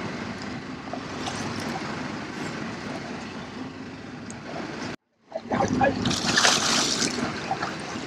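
Steady boat and water noise while a fish is fought on a rod; after an abrupt cut about five seconds in, loud splashing as a hooked tuna thrashes at the surface beside the boat and is gaffed.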